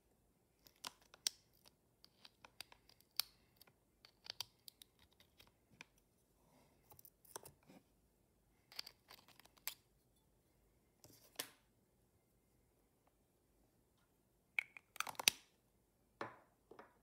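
Slime with glitter, clay bits and beads in it being pressed and poked by fingers, giving faint sticky clicks and crackles in little clusters with pauses between them.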